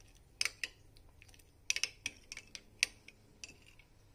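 Steel spoon clinking and scraping against a ceramic bowl while stirring a frothy yeast-and-water mixture: irregular light clinks, loudest about half a second in and again just under two seconds and three seconds in.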